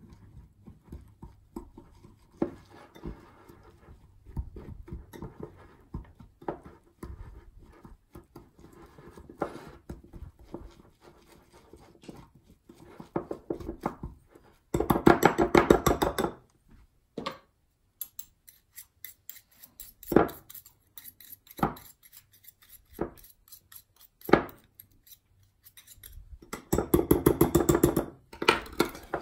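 A metal fork, and near the end a spoon, stirring and scraping a crumbly cinnamon-sugar and butter mixture in a small glass bowl, clinking lightly against the glass. About halfway through and again near the end comes a second or so of fast, louder stirring, with a few single taps in between.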